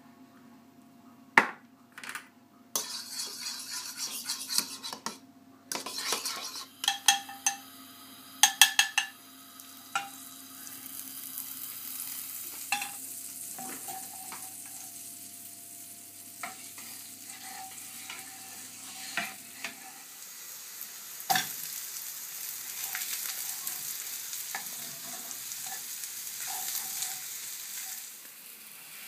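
A fork clinking against a bowl while eggs are beaten. Then sliced onion and strips of chicken-of-the-woods mushroom sizzle in hot oil in a frying pan from about a third of the way in, with occasional knocks of a wooden spatula as the pan is stirred.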